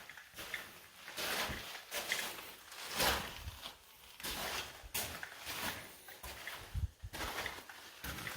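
Footsteps of a hiker crunching and scuffing on a dirt and gravel trail, about one step a second.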